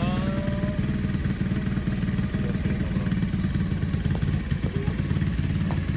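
Lifan 125 single-cylinder four-stroke engine in a Honda CT70 minibike idling steadily.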